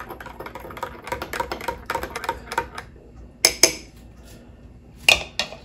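Metal teaspoon stirring in a glass mug of milk, a quick run of light clinks against the glass, then two sharper clinks about three and a half seconds in and two more near the end.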